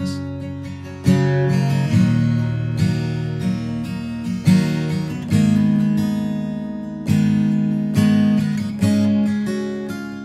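Acoustic guitar strumming chords in an instrumental break of a song, no singing.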